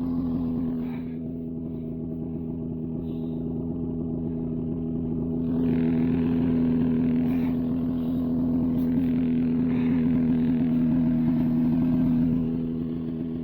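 Snowmobile engine running at a steady pitch, growing louder about six seconds in.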